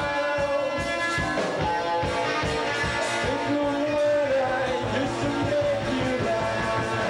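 Live rock band playing: a drum kit keeps up a steady beat under bass and electric guitar, with a melody line sliding in pitch above them.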